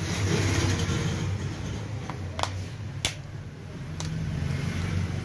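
Plastic casing of a Nokia 210 phone being handled and pried open by hand: rustling at first, then four sharp clicks and snaps, the loudest about three seconds in. A steady low hum runs underneath.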